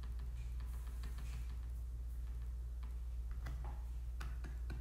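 Light clicks and taps from a computer pointing device, scattered and mostly in the second half, as a drawing on screen is undone and rewritten. Under them runs a steady low electrical hum.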